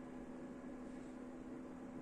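Faint steady hum with an even background hiss: room tone.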